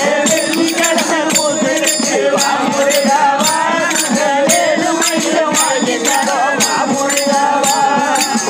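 Tamil devotional bhajan: men's voices singing the refrain over a harmonium, with a steady beat from a hand-held frame drum and jingling percussion.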